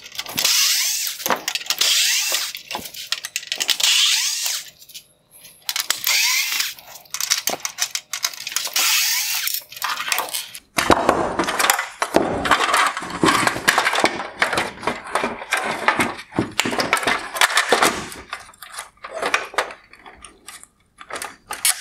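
Small cordless electric screwdriver whirring in several short runs as it backs out Torx screws from a plastic headlight housing. From about eleven seconds in, a long run of clicks, creaks and cracks follows as the housing's plastic and metal parts are pulled apart by hand.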